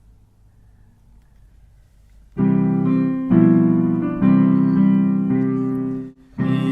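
After about two seconds of faint hum, a piano or electric keyboard plays loud held chords, changing about once a second, as the introduction to a sung school song; it breaks off briefly just before the end and comes back in.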